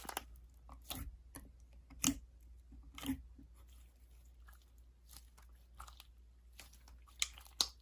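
Slime being squeezed and poked by hand, giving faint, scattered sticky clicks and crackles, a little louder about two and three seconds in and again near the end.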